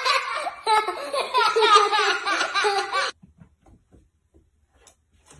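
A young girl laughing high-pitched and loud, cutting off suddenly about three seconds in, followed by near silence.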